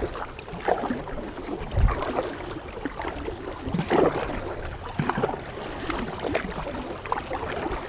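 Kayak paddling: the paddle blade dipping and splashing in the water in irregular strokes, with a low thump about two seconds in.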